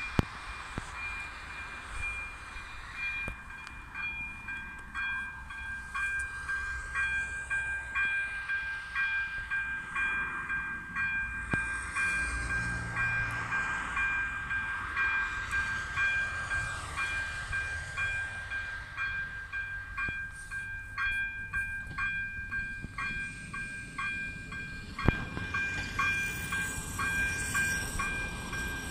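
Electronic warning bell of an AŽD 97 level-crossing signal, ringing as a steady run of evenly repeated high dings while the crossing is activated for an approaching train.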